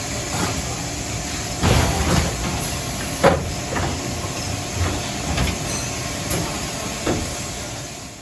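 Brother TC-32BN CNC drilling and tapping machine running: a steady hiss with several sharp clunks, the loudest about three seconds in.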